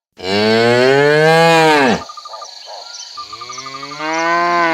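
Cow mooing: two long, loud moos about a second apart, each holding its pitch and then falling away at the end.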